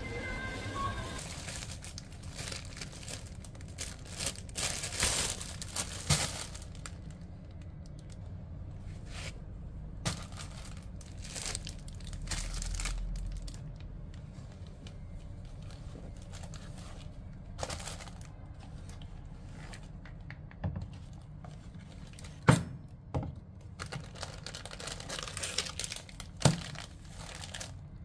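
Close handling noises: rustling and tearing with scattered light clicks and knocks, and a sharper knock about twenty-two seconds in.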